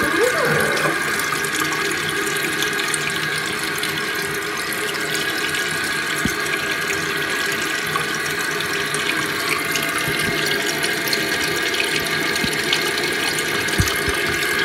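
Armitage Shanks Kensington toilet cistern refilling, water hissing steadily through the fill valve as it runs in, with a couple of light knocks.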